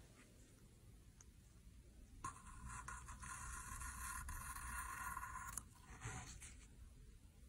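Flat razor blade scraping through a frozen, frost-coated fruit as it shaves off a thin slice. A faint scratchy rasp starts about two seconds in and runs for about three seconds, with a shorter scrape just after.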